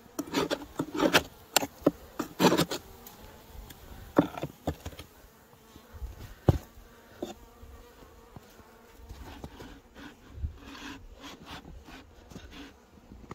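Honeybees buzzing at a hive. A run of sharp knocks and scrapes, the loudest sounds, comes in the first few seconds, and after that a softer steady buzz is left.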